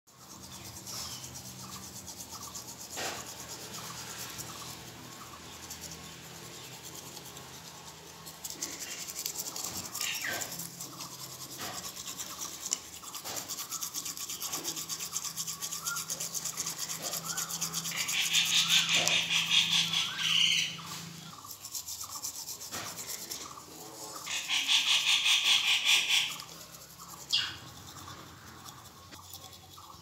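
Toothbrush scrubbing an Alexandrine parakeet's beak, a rhythmic rasping that gets much louder for a couple of seconds about two-thirds of the way through and again near the end, with a few short bird calls from the parakeet.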